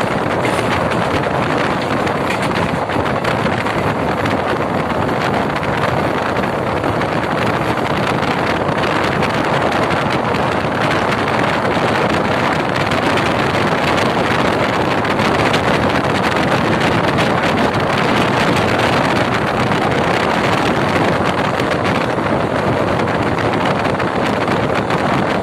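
Steady rush of wind on the microphone mixed with wheel-on-rail noise, heard from the open doorway of a passenger coach with the train running at full line speed.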